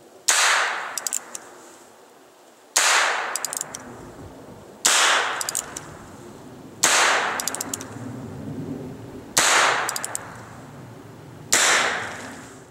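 Heritage Rough Rider single-action .22 revolver fired six times, about one shot every two seconds. Each shot is a sharp crack that trails off over a second or so.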